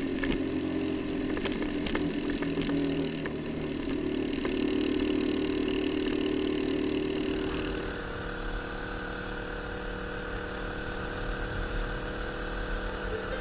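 Motorcycle under way, its engine running at a steady cruise over road and wind noise, with scattered ticks from a gravel surface. About eight seconds in, the engine note fades back and a steadier rushing takes over.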